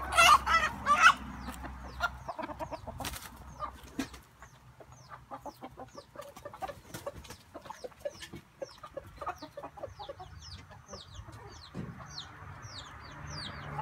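Chickens clucking and pecking at kale leaves, with a loud call in the first second and a string of short, high, falling chirps through the second half.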